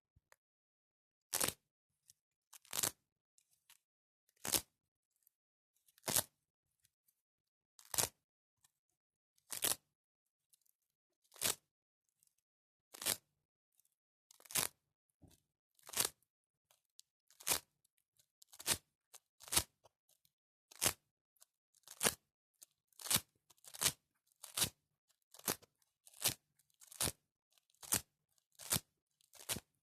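A series of short scratching strokes with silence between them, about twenty in all. They come roughly every second and a half at first and grow quicker, to under a second apart, toward the end.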